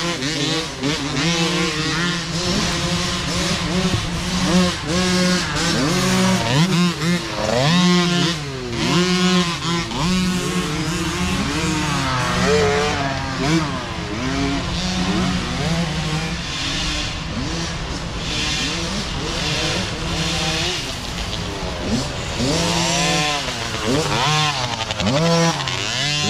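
Small-displacement micro dirt bike engines revving up and down again and again as several bikes ride past, their pitch climbing and dropping every second or two over a steadier, lower engine note.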